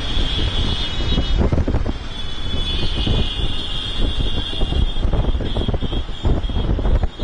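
A large group of motorcycles riding together, their engines running in a continuous steady rumble, with wind buffeting the microphone.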